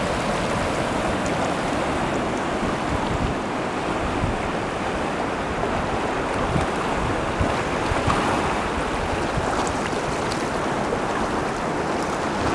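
Sea water washing steadily over and among the rock ledges of a rocky shoreline, a continuous wash of surf without distinct breaks.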